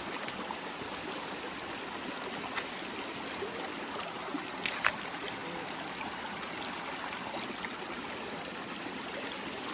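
Forest stream flowing steadily, a continuous rush of running water, with a few faint clicks, the clearest about halfway through.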